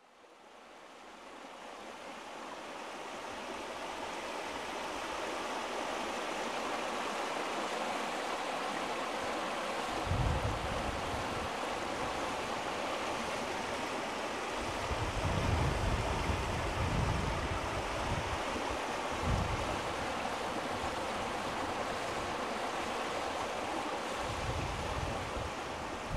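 Steady rushing of flowing water, fading in over the first few seconds. Gusts of wind buffet the microphone from about ten seconds in, a few times.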